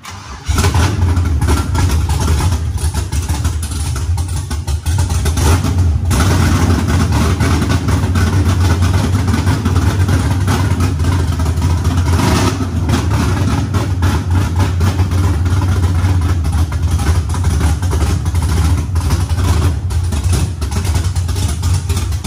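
A GM OBS pickup's engine fires up for its first start within the first second, then runs loud and steady. Its note changes briefly a couple of times.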